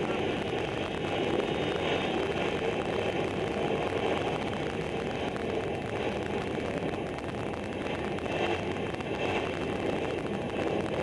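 Steady drone of many motorcycle engines running together, with no single engine standing out.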